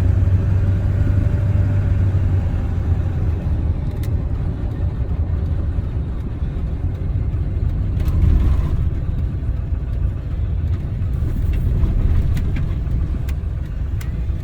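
A truck running on the road, a steady low engine and road rumble, with a few light clicks in the second half.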